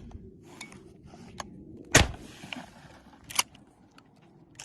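A 12-gauge shotgun fires one slug, a single sharp shot about two seconds in, with a short hissing tail after it. A few lighter clicks follow.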